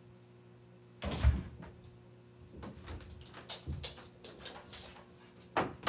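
A room door being opened, with a loud knock and deep thud about a second in, then scattered small knocks and clicks, and another loud knock near the end.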